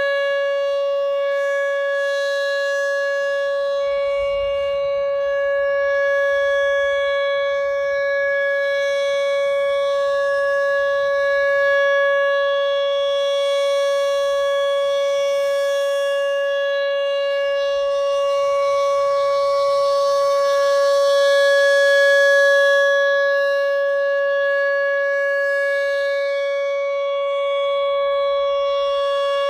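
Whelen 2806 electronic warning siren sounding a steady 560 Hz alert tone, the signal of a 3-minute alert test. The pitch holds constant while the loudness swells and fades gently a couple of times.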